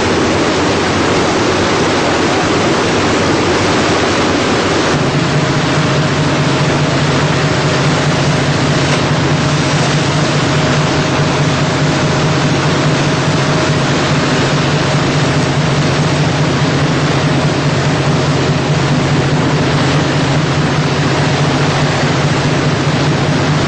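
Steady rush of sea water along a moving ship's hull with wind buffeting the microphone. About five seconds in, a steady low hum from the motor vessel's engine comes in and holds.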